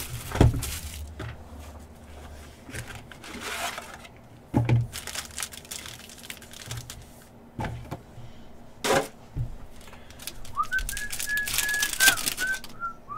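Plastic and foil trading-card pack wrappers being torn open and handled: steady crinkling and crackling with a few sharp, louder rips. A short run of whistled notes near the end.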